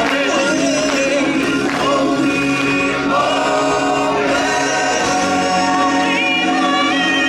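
Live stage-show music: a choir of amplified voices singing held notes with vibrato over backing music.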